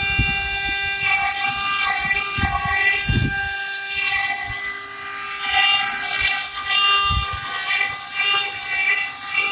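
CNC stone-carving machine running: a steady multi-toned whine of its spindle motors, with grinding noise swelling and falling in several bursts as the bits cut stone, and a few low thuds in the first few seconds.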